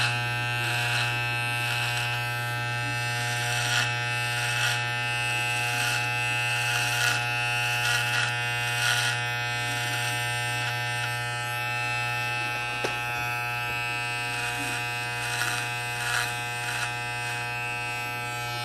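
Electric hair clippers buzzing steadily, with short louder rasps every second or so as the blade cuts hair on the back of the neck.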